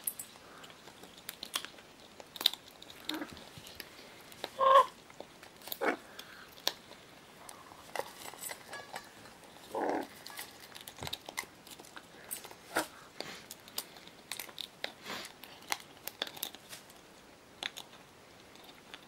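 Scarlet macaws eating from a stainless steel bowl: irregular crunches and sharp clicks as their beaks crack and chew food. A louder short sound comes about five seconds in, and another near ten seconds.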